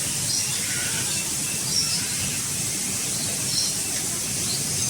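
Birds chirping in short, scattered high notes, several times over a steady background hiss of ambient noise.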